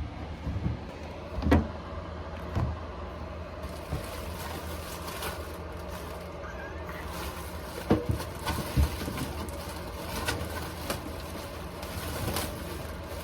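Scattered knocks and clunks of household items being handled during kitchen cleaning, a few seconds apart, over a steady low hum.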